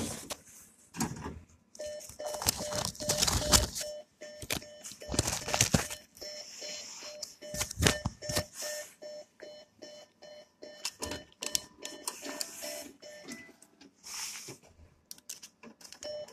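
NCR cash machine beeping, a short steady beep repeating evenly a few times a second at its cash-deposit slot, while the machine returns banknotes it cannot accept. Several louder noisy bursts of handling and mechanism noise come in the first half.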